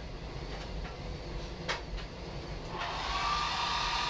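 A hand-held hair dryer switches on about three quarters of the way through and runs with a steady whine over a rush of air. A single sharp click comes shortly before it.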